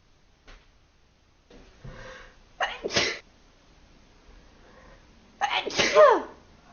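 Two sharp sneezes about three seconds apart. The second ends with a tail that falls in pitch.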